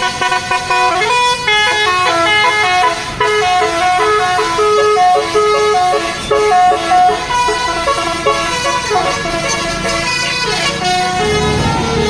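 Bus 'telolet basuri' musical horn playing a tune of short held notes that step up and down in pitch.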